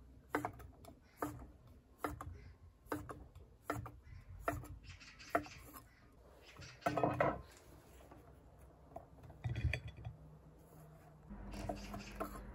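Chef's knife slicing through sticks of chewy rice cake (garaetteok) on a wooden cutting board: a regular chop of the blade meeting the board, a little more than once a second, seven strokes. A longer, louder noise comes about seven seconds in, and a short one near ten seconds.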